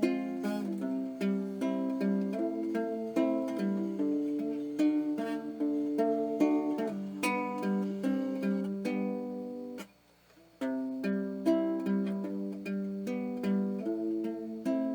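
Background music played on plucked strings, a melody over chords, with a brief break about ten seconds in.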